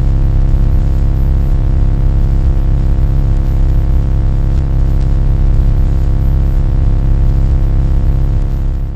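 Loud, steady low drone with a dense stack of steady tones over a heavy rumble, cutting off abruptly right at the end.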